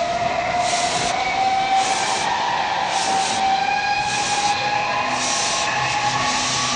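Ghost train ride car running along its track: a steady whine with a hiss that pulses about once a second.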